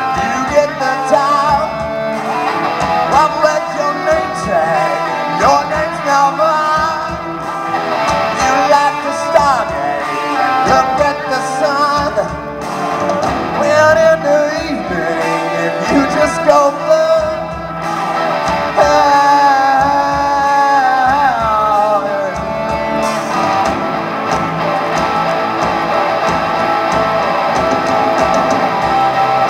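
A live rock band playing electric and acoustic guitars over a drum kit, with bending guitar or vocal lines; from about 23 seconds in the sound settles into fuller, steadier strumming.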